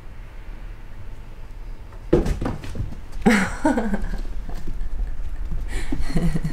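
A sudden thump about two seconds in, then short cat calls falling in pitch, and one more call near the end, as an adult tabby cat and a calico kitten play.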